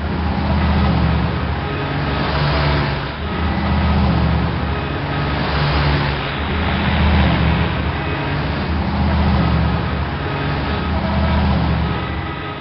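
Dense road traffic: a steady wash of engine and tyre noise with a low engine hum underneath.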